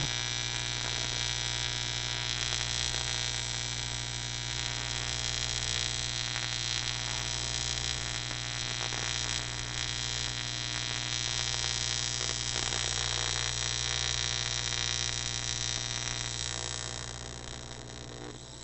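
AC TIG welding arc on 6061 aluminum tube, run from a Lincoln Square Wave TIG 175: a steady electrical buzz that fades over the last couple of seconds.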